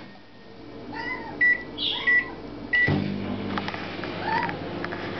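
Microwave oven keypad beeping a few short times, then the oven starting up and running with a steady hum from about three seconds in. A cat meows repeatedly over it.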